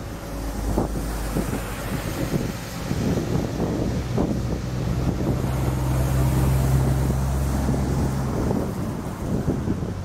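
Vehicles driving through a flooded road: tyres hiss and splash through standing water and throw up spray. A low engine drone grows louder, peaks around six to seven seconds in, then cuts off about eight seconds in as a small truck ploughs through the water.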